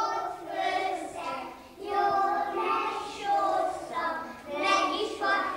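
A group of young kindergarten children singing a song together, phrase by phrase with short breaks between.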